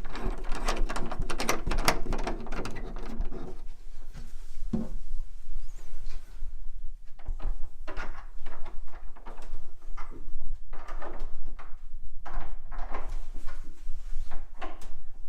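Wooden knocks, clicks and rattles from an antique pine wardrobe being handled as a door catch is fastened and the doors are worked. A dense run of clicking comes first, then separate knocks every second or two.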